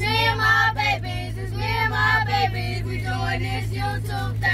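A group of children singing together, with a steady low hum underneath.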